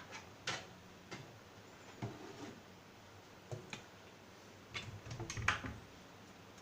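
Scattered light clicks and taps of a plastic microwave egg poacher's container and cups being handled, about seven at irregular spacing, several close together near the end.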